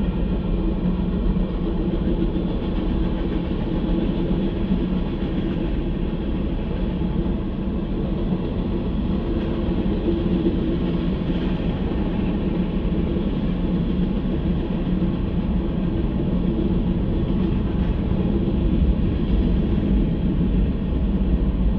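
Freight train rolling through a grade crossing, the railcars passing in a steady, unbroken rumble, heard from inside a stopped car.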